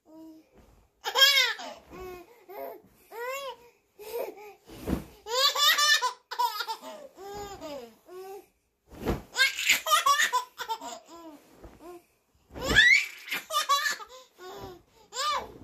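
Baby laughing in about four bouts of high laughter that rises and falls in pitch, with short pauses between.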